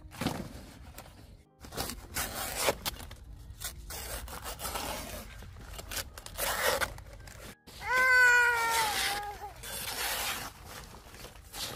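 Banana leaves rustling and scraping as they are cut and handled with a machete, then about eight seconds in a toddler lets out one long, loud yell that falls slightly in pitch, the loudest sound here.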